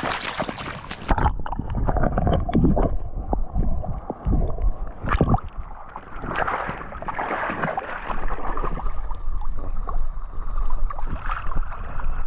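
Water splashing in the first second as a large fish is released from the hand into a shallow stream. After that, water sloshes and gurgles around a camera held at the water's surface, with a low rumble of wind on the microphone.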